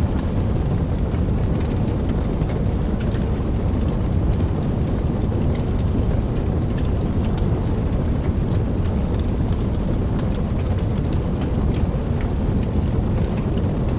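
Campfire crackling: scattered sharp snaps and pops over a steady low rumble.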